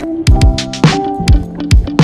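Background music with a steady beat of deep electronic kick drums and sharp drum hits over held tones.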